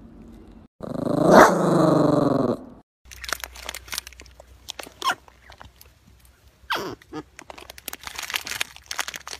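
A Yorkshire terrier gives one loud, drawn-out call lasting about two seconds. Then marmots scuffle, with rustling and a few short falling cries.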